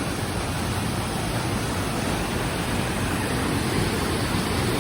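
A river's fast-flowing water rushing over rocks and falls, a steady unbroken rush.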